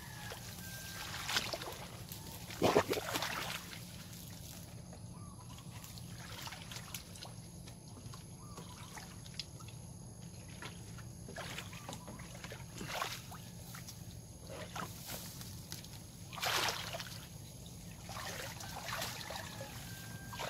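Pond water sloshing and splashing as a person wades through a dense lotus pond, pushing through leaves and stems, in irregular bursts; the strongest come near the start and again about three-quarters of the way through.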